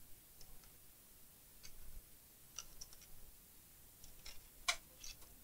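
Hands taking apart a laptop: faint, scattered small clicks and taps of plastic parts, cables and connectors being handled, about eight in all, with the sharpest click a little before the end.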